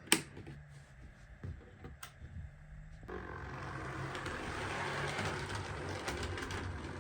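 A sharp click, then an OO gauge model locomotive running on the track: a steady motor hum joined about three seconds in by a rising rattle of wheels over rail and points, which swells and eases off near the end.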